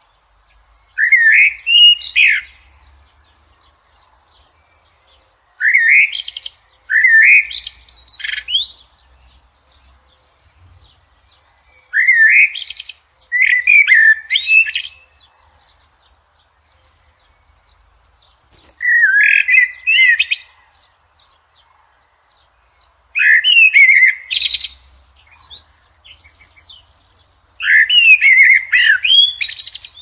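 Eurasian blackbird singing: about eight short, warbled phrases a few seconds apart, several ending in a brief, high, squeaky flourish.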